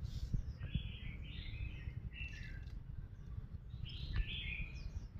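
White-eye giving short, high twittering chirps in three or four brief clusters, over a steady low background rumble, with a light tap or two.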